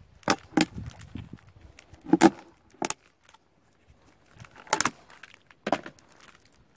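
Green plastic bucket lid being pried off by hand: a string of about six sharp snaps and clicks, a second or so apart, as the lid comes free of the rim.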